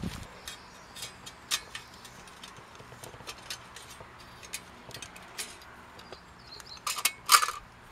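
Light metal clicks and taps, scattered and irregular, as the plates and pot-support ring of a Honey Stove, a folding stainless-steel wood-burning camp stove, are handled and fitted together. Two louder bursts of noise come near the end.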